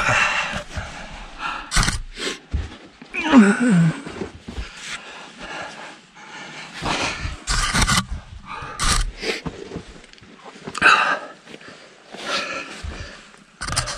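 A man breathing hard and grunting with effort as he squeezes through a narrow crawl space between rocks, his jacket scraping and brushing against rock, with scattered knocks. A groan that falls in pitch comes about three seconds in.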